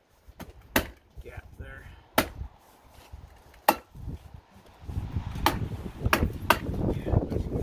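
A hand tool striking the wooden window framing: six sharp knocks, spaced irregularly a second or so apart, the last three coming closer together. A low rumbling noise runs under the second half.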